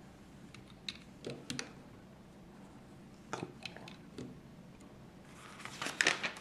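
Plastic Lego pieces clicking and tapping as they are pressed onto a small Lego car, a few separate clicks, then a brief rustle of handling with louder clicks near the end.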